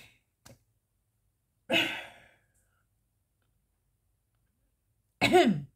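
A woman sighs once, a long breathy exhale about two seconds in. Near the end comes a short voiced sound from her with a rise and fall in pitch.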